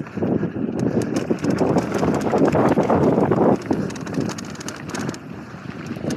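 Mountain bike rattling and clattering at speed over a rough dirt downhill trail, with tyres on loose ground and wind on the microphone; the clatter eases off about halfway through.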